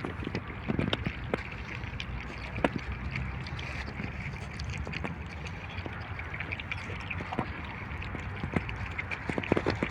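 A pack of puppies lapping milk from metal platters: many small, irregular wet clicks over a steady outdoor hiss.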